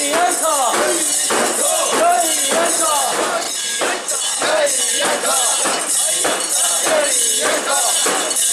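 A crowd of bearers carrying a mikoshi chants in rhythm, while the shrine's metal rings and fittings jangle with each sway, about two or three times a second.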